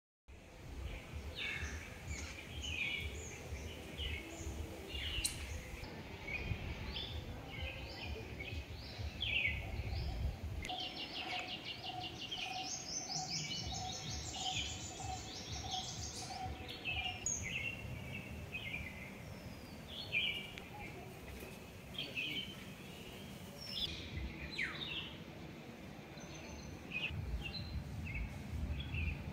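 Many wild birds chirping and calling, with short, quick trills overlapping throughout. A lower note repeats about twice a second for several seconds near the middle. A low rumble sits underneath during roughly the first third.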